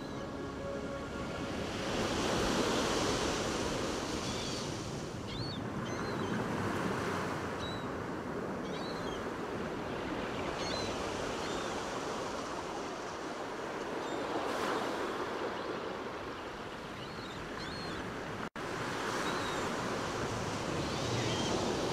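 Ocean waves washing in, each swell rising and fading about every four seconds, with faint short chirps over them. The sound drops out for an instant about three-quarters of the way through.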